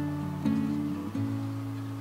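Background music: plucked acoustic guitar notes.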